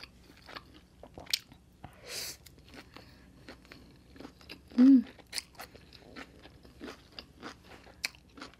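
Close-up eating sounds of thin stir-fried egg noodles: wet chewing and many small mouth clicks as the noodles are slurped in from chopsticks. A brief hum of the voice about five seconds in is the loudest sound.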